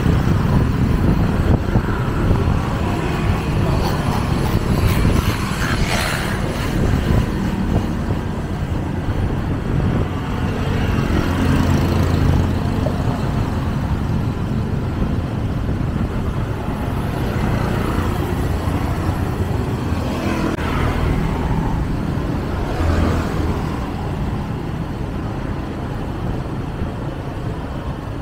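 Steady road and traffic noise from a vehicle driving on an elevated highway: a low rumble of engine and tyres, with a few brief louder swells, one about six seconds in and several more in the second half.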